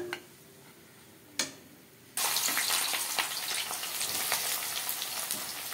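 Two light clicks, then about two seconds in a loud, steady sizzle starts suddenly: sliced onions frying in hot oil in a kadai.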